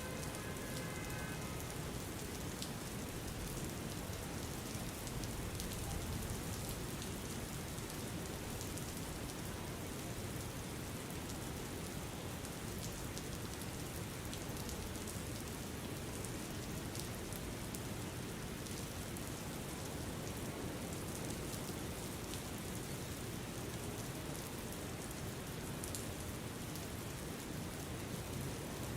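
Steady rain falling on a surface, an even wash with scattered individual drops ticking through it.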